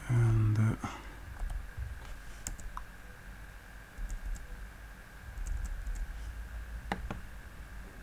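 Sparse computer keyboard keystrokes: single clicks and short clusters spread out with pauses between them, the clearest near the end. It opens with a brief low hum of a voice.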